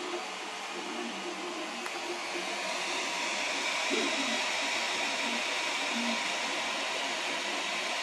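Alfawise U30 Pro 3D printer printing: a steady hiss of its cooling fans with short, shifting tones from the stepper motors as the print head moves. The fans are the loud part; the motion itself is quiet.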